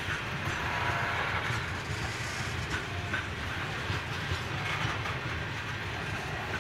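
Loaded grain train rolling past: steel wheels on rail under the hopper wagons, a steady rumble with occasional faint clicks.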